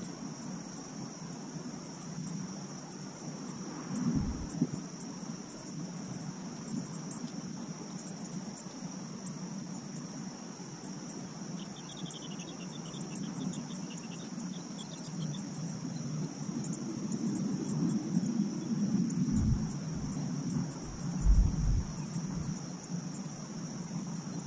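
Steady high-pitched drone of insects, over a low rumble of distant traffic or aircraft that swells in the second half. A few dull thumps come about four seconds in and again near the end, the loudest of them around twenty seconds in.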